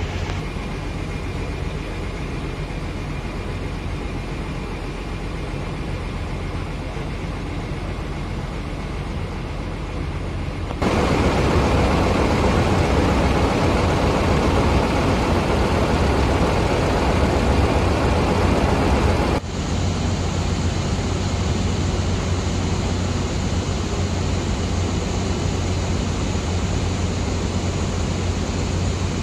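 Steady hum of idling diesel coaches: first inside the coach cabin, then louder outside among the parked buses from about eleven seconds in, and from about nineteen seconds in a steady deep hum at the front of a Mercedes-Benz-engined Medali Mas coach.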